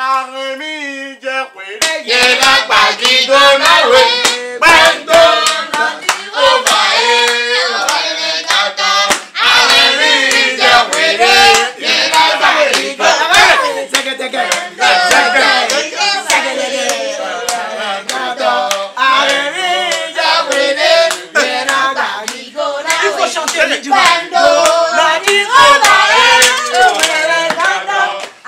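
A group of voices singing a praise song together, with rhythmic hand clapping. The full singing and clapping come in about two seconds in.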